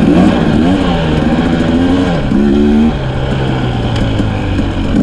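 Dirt bike engine heard from on the bike, its revs rising and falling twice, then settling to a steady lower note about three seconds in.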